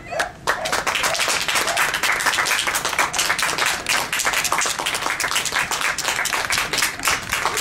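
Audience applauding: many hands clapping at once, swelling up within the first half second and then going on steadily.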